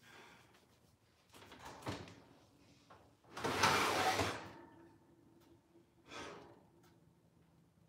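An oven door is opened and the pan checked inside, with a noisy swing and slide lasting about a second, about three and a half seconds in. Smaller knocks of handling come before and after, and a faint steady hum follows.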